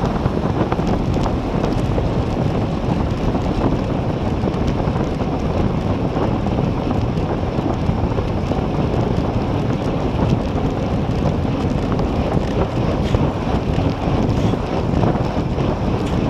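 Steady rush of wind buffeting the microphone of a camera on a road bike riding at about 45–55 km/h.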